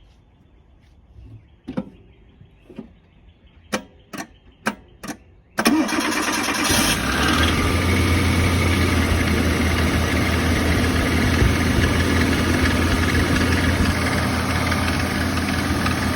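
A few light knocks, then the 1990 Suzuki Samurai's 1.3-litre four-cylinder engine starts suddenly about five and a half seconds in and runs steadily at idle. It runs with a noise the owner puts down to a loose drive belt.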